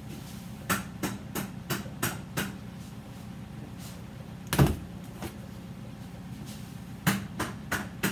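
Plastic soap loaf mold in a wire frame tapped down on a stainless steel worktable to settle the freshly poured soap batter: a quick run of about six knocks, one heavier thump midway, then another fast run of knocks near the end.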